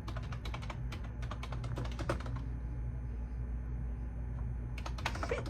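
Typing on a computer keyboard, in two runs of quick key clicks with a pause of about two seconds between them, over a steady low hum.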